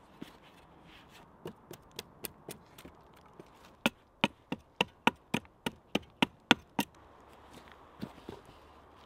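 Hammer driving a nail into wood: a few light taps to set it, then a quick run of about a dozen harder blows, roughly three a second, and a couple more light taps near the end.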